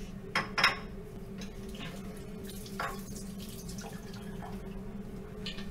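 A small hydrogen-filled balloon ignited by a candle flame goes off with a sharp double crack near the start, the hydrogen combining explosively with oxygen. A few faint clicks follow over a steady low hum.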